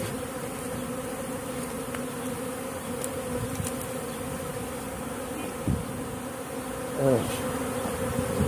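A swarm of honeybees buzzing in a steady drone around the hive the swarm has just left. About seven seconds in, a single bee flies close past, its hum bending in pitch as it goes by.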